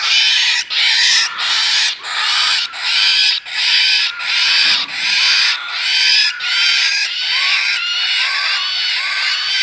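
Cockatiel chicks giving a rapid string of hissy, raspy calls, about one and a half a second, each with a rising-then-falling squeal in it.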